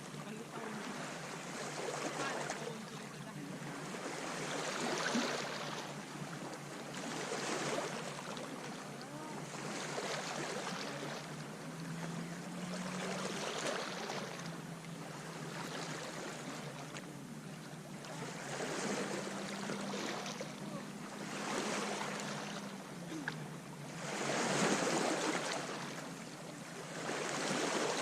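Small sea waves breaking and washing up a sand beach, each surge swelling and fading every two to three seconds.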